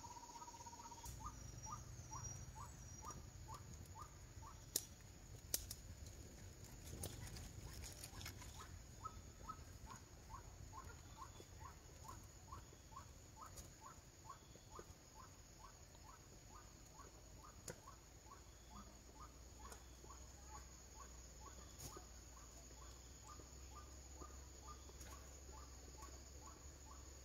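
Faint outdoor ambience: a small animal's short chirp repeated about twice a second over a steady high-pitched drone, with a couple of sharp clicks about five seconds in.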